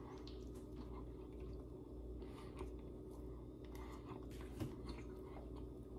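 Faint chewing of a soft white-bread banana sandwich, with small wet mouth clicks over a steady low hum.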